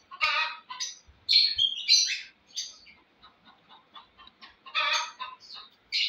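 Lovebirds calling in an aviary: a run of short, high-pitched calls over the first two seconds or so, fainter chirps, then another loud burst about five seconds in.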